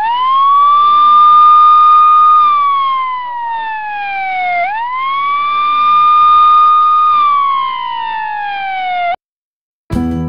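Ambulance siren in a slow wail, twice: the pitch rises quickly, holds high for about two seconds, then slides down before rising again. It cuts off suddenly about nine seconds in.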